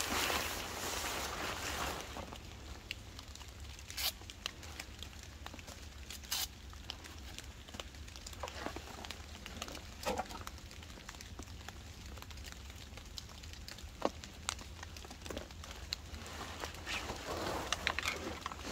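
Rustling of a camouflage nylon rain poncho and backpack being pulled off and handled, heaviest in the first two seconds, then scattered light clicks and brief rustles.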